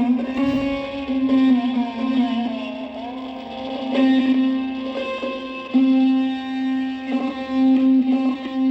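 Music with plucked string instruments and a held low tone, playing through the speaker of an old Nelco transistor radio.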